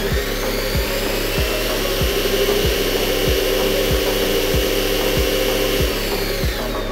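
Electric drive motor and gearbox of an RC rescue truck whining as its raised wheels spin at high speed, the pitch rising at the start and falling away near the end. Background music with a steady beat plays underneath.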